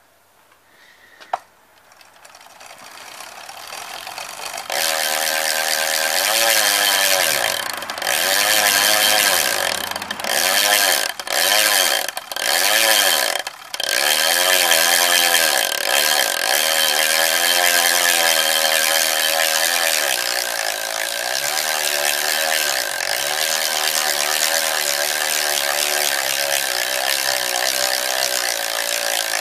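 Freehub of a Xentis Mark 1 four-spoke carbon rear wheel buzzing as the wheel spins freely. It builds up over the first few seconds, cuts out briefly several times, then runs on steadily.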